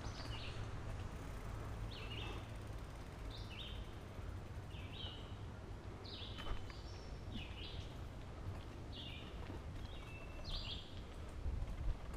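Mountain bike rolling fast over a dirt forest trail: a steady low rumble of tyres and movement on the mic, with short high-pitched chirps repeating about once a second.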